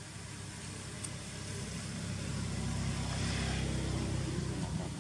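A motor vehicle passing by, its engine hum and road noise swelling to a peak about three seconds in, then fading.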